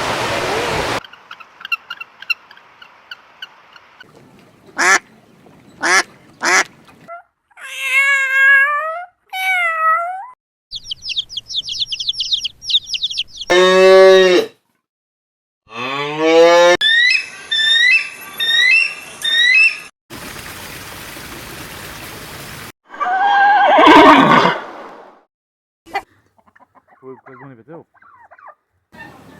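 A string of different animal and bird calls cut one after another, each lasting a second or two, with short silent gaps between them: rapid high trills, repeated chirps, falling honking calls, a stretch of steady hiss and a loud harsh call about two thirds of the way through.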